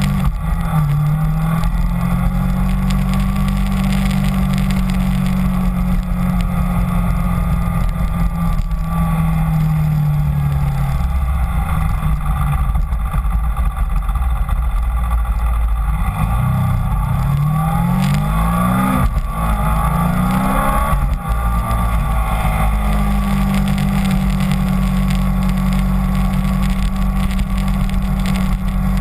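Kawasaki Ninja 250 motorcycle engine running under way, with wind rushing over the handlebar microphone. The engine note holds steady, drops lower for a few seconds around the middle, then climbs quickly several times in a row as the bike accelerates through the gears, and settles back to a steady note.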